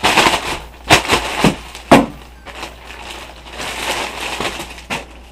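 Plastic courier mailer bag crinkling and rustling as it is handled and pulled at, with sharp crackles about one and two seconds in.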